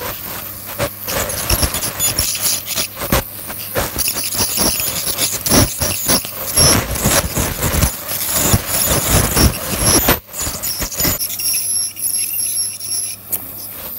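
Ultrasonic dental scaler running with a steady high-pitched whine and a spray hiss as its water-cooled metal tip works tartar off a dog's teeth. Many short scraping clicks come from the tip against the teeth.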